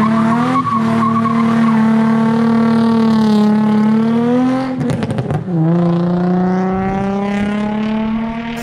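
Nissan 350Z's 3.5-litre V6 held at high revs through a drift, with tires squealing and sliding on the asphalt; the engine note drops lower about halfway through.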